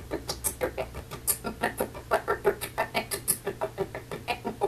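An animal calling in rapid, short, repeated notes, about six a second, with a few sharp high squeaks mixed in.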